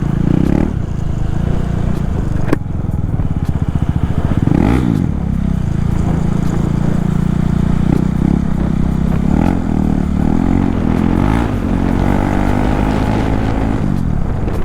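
KTM Duke 390's single-cylinder engine running loud through a raw exhaust with the silencer removed, the pitch rising and falling in several quick throttle blips. A sharp click about two and a half seconds in.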